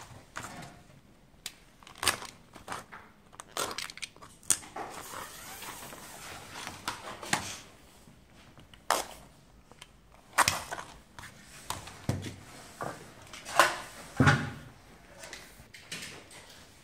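Irregular clicks, knocks and rustling from mosquito-net frame profiles and pleated net mesh being handled on a work table, with a couple of louder knocks about two-thirds of the way through.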